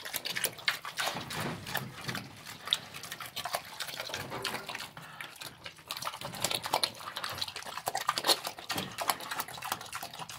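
A pig eating wet slop of kitchen scraps from a trough: irregular wet chomping, smacking and slurping, with a brief lull about halfway.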